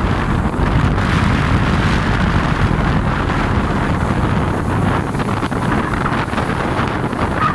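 Rough sea waves breaking and washing over rocks in a continuous surging rush, with strong wind buffeting the microphone in a heavy low rumble.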